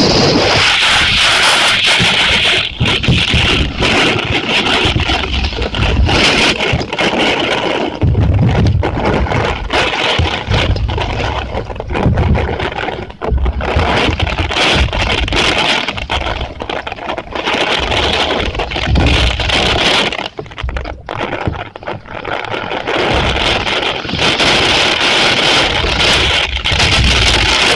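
Typhoon rainstorm: a loud, rushing hiss of heavy rain and wind that swells and dips, with gusts buffeting the microphone in low rumbles every few seconds.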